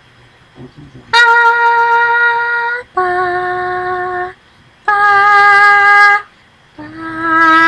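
A person's voice singing four long held notes at a steady pitch, each lasting over a second, with short gaps between them. The last note swells up and runs on past the end.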